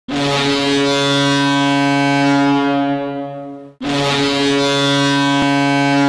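Saskatoon Blades' 2014–15 arena goal horn sounding two long blasts, each a steady, deep horn tone with many overtones lasting about three and a half seconds and tailing off at the end. The second blast starts just under four seconds in.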